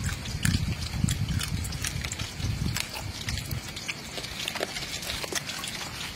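A person chewing a crunchy cooked lizard close to the microphone: wet munching for the first three seconds, with sharp crunchy clicks throughout.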